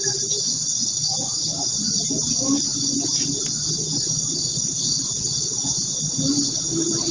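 A night chorus of crickets, a steady high-pitched trill. Underneath it is a low murmur, with a brief moaning tone near the start and again near the end.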